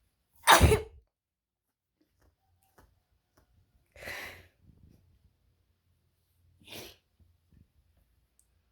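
A loud, short sneeze about half a second in, followed by two much softer noisy bursts of breath near four and seven seconds in.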